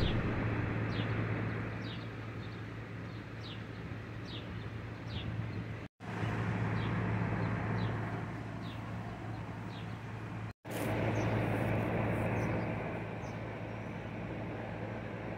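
Outdoor ambience: a steady low hum under a bird chirping over and over in short high notes. The sound drops out for a split second twice, about six and about ten and a half seconds in.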